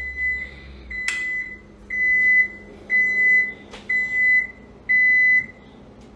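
Electronic appliance beeper sounding a string of about six steady, same-pitched beeps, each about half a second long and about a second apart, with a couple of short clicks among them.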